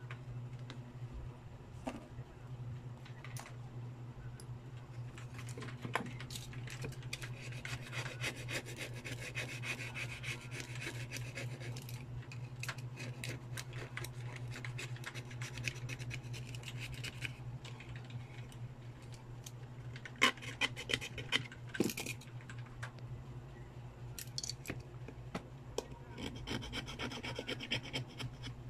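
Small hand tools scraping and rubbing on the parts of a water-damaged Vivo Y91 phone as corrosion is cleaned off, with a steady low hum underneath. A run of sharp clicks and taps comes about two-thirds of the way through.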